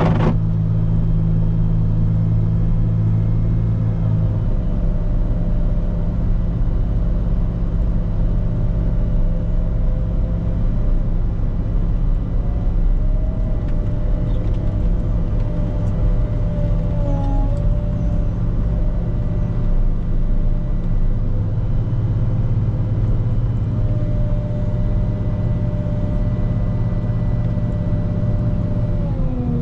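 Volvo L90H wheel loader's diesel engine running steadily while plowing snow, easing off slightly after about four seconds. A whining tone above the engine wavers and bends in pitch at times and glides down near the end.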